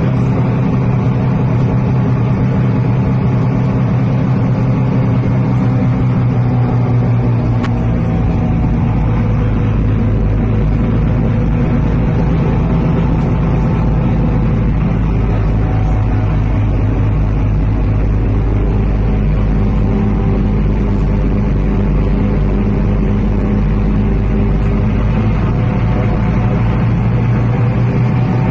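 Steady drone of a vehicle's engine, heard from inside the vehicle as it drives along a flooded street.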